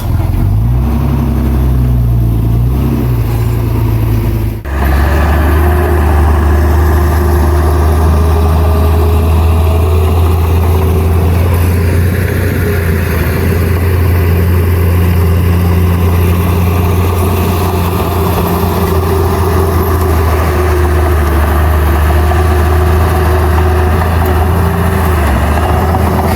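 Heavy diesel engine of earthmoving machinery running steadily with a deep drone. Its pitch rises in the first seconds, and the sound changes abruptly to a steadier, deeper running about four and a half seconds in.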